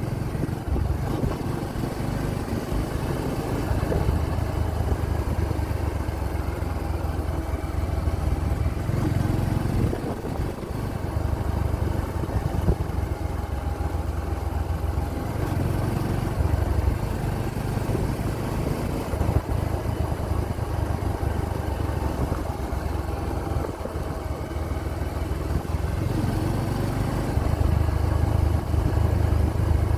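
Motor vehicle engine running on the move, with a steady low rumble and road noise. It grows louder near the end.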